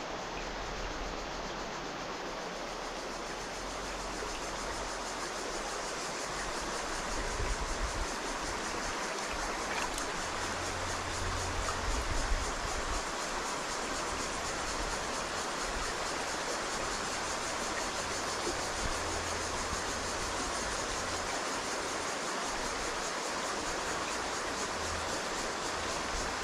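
Shallow creek water running steadily over stones and pebbles, with a few low bumps around the middle.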